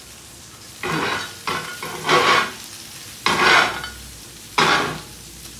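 Deer-meat burger patties frying in melted butter in a cast iron pan: a steady sizzle, with about five sudden louder bursts of sizzling and scraping as a metal spatula turns the patties.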